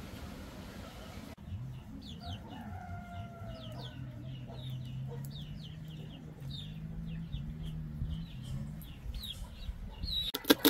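Chickens clucking in short repeated calls, with a rooster crowing, over a low steady hum. A loud sharp clatter comes near the end.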